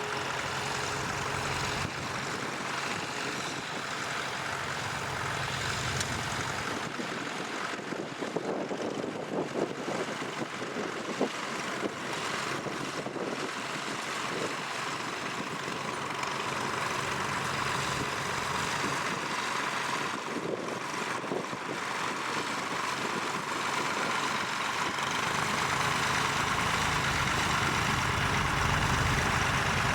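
Tractor engine running steadily while pulling a plough. Its low drone drops away after a few seconds and builds up again, louder, near the end as the tractor comes closer.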